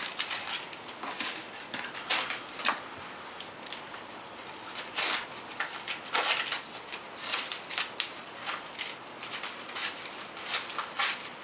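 Shipping packaging handled and unwrapped by hand: irregular rustling and crinkling of tape-wrapped padding and plastic, with sharper crackles about five and six seconds in.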